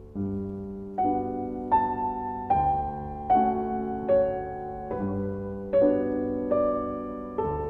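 Slow solo piano music: chords and single notes struck about once a second and left to ring.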